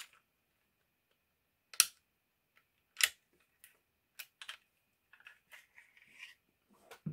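Glock pistol parts being handled during disassembly: two sharp metal-and-polymer clacks about two and three seconds in, then lighter clicks and rattling as the slide and frame are worked.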